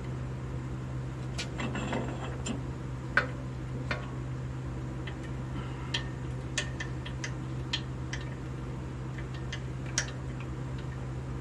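Scattered sharp metallic clicks and clinks of bolts and hand tools being handled while an engine block is bolted to an engine stand, about a dozen at irregular intervals, with the loudest about three seconds in and near the end. A steady low hum runs beneath.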